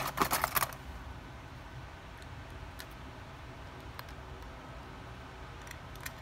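A quick cluster of light clicks and rattles as the Samsung Galaxy A2 Core's display assembly and frame are handled, then a few faint scattered ticks of metal tweezers touching the display flex-cable connector.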